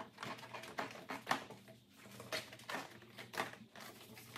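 Plastic air intake duct of a Honda Ridgeline being lifted out of the engine bay by hand: scattered light plastic knocks, taps and rustles as it shifts against the surrounding parts.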